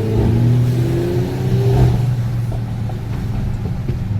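Car engine accelerating, its pitch climbing in the first couple of seconds, then settling into a steady low running note.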